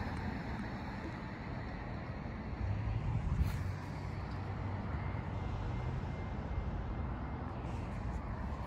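Steady outdoor rumble of road traffic and wind on the microphone, with a low engine hum that swells for a couple of seconds about three seconds in.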